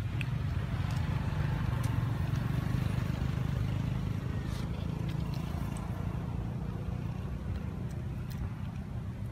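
Steady low rumble with a few faint, scattered clicks.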